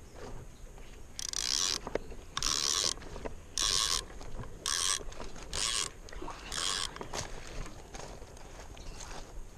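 Spinning fishing reel working in six short bursts, each about half a second long and roughly a second apart, stopping about seven seconds in.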